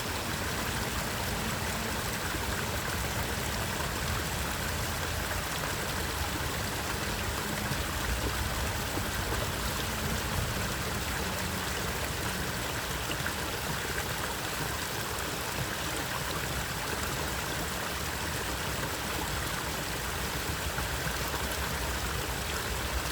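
Water of a stream flowing steadily, an even, unbroken rush.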